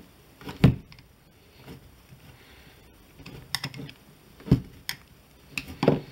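Flat-blade screwdriver prying at the seam of a cockpit instrument case sealed with two O-rings, giving scattered sharp clicks and knocks of tool on case. The loudest come about half a second in, at about four and a half seconds, and near the end.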